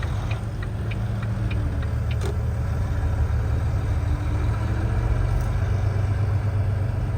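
Semi truck's diesel engine idling with a steady low hum, heard inside the cab, with light, evenly spaced ticking during the first couple of seconds.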